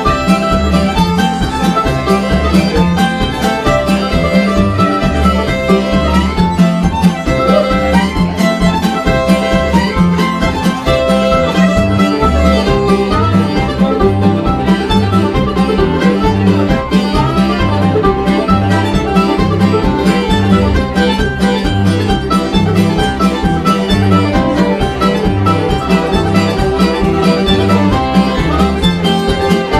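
Old-time string band playing a fast instrumental fiddle tune: F-style mandolin and fiddle over a steady alternating bass line.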